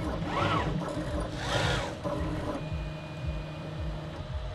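RepRapPro Mendel 3D printer's stepper motors whining as the print head is driven across the bed. The pitch rises and falls twice in quick moves during the first two seconds, then holds steady for about a second and a half before easing off near the end.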